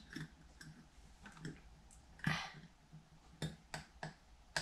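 The metal wire clamp and lid of a glass storage jar clicking and clinking as fingers work it, in about eight scattered clicks, the loudest a little over two seconds in.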